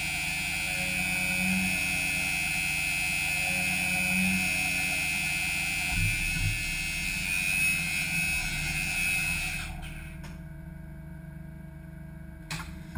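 CNC mill-turn lathe milling an aluminium part, its live-tool spindle giving a steady high whine over a low machine hum. About three-quarters through the whine stops, leaving a quieter hum and a couple of clicks.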